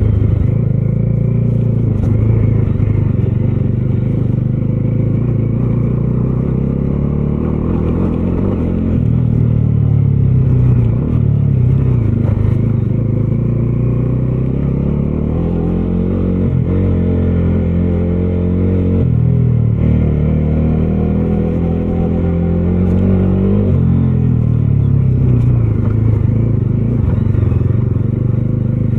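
Bajaj Dominar 250's single-cylinder engine running under way. The revs climb and drop sharply a few times as the rider shifts gears, notably around the middle and about two-thirds of the way through.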